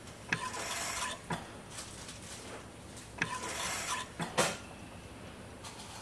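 Medical ventilator cycling: twice, a click and a short rush of air lasting under a second, about three seconds apart, with sharp mechanical clicks after each breath, the loudest a little after four seconds in.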